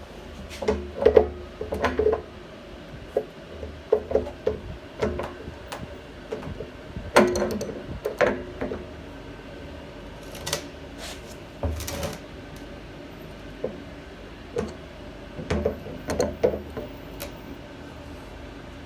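Wrench working the nut on a float valve's threaded stem, tightening it: irregular clicks and clunks of metal on the fitting, coming in short clusters with pauses between.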